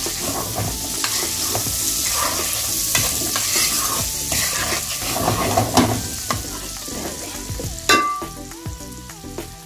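Sliced onions and prawns sizzling in hot oil in a nonstick wok, stirred with a wooden spatula that scrapes and pushes them around the pan as the onions fry toward brown. The sizzle eases over the last few seconds, and there is one sharp knock of the spatula about eight seconds in.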